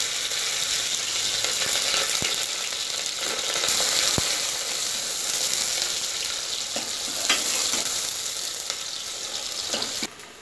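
Chopped onions sizzling in hot mustard oil in an aluminium pressure cooker, stirred with a steel ladle that clicks against the pot now and then. The sizzle drops off sharply near the end.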